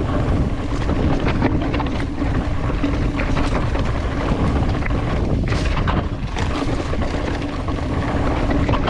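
Mountain bike riding fast downhill on a rough dirt trail: heavy wind rush over the microphone, with the bike and tyres rattling and knocking over the bumpy ground throughout.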